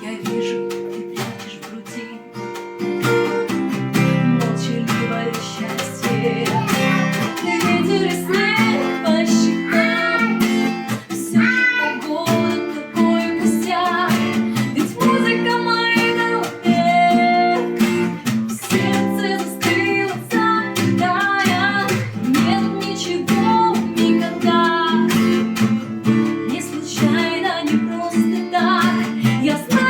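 Acoustic guitar strummed with djembe hand-drum strokes. A woman's voice comes in singing a melody several seconds in.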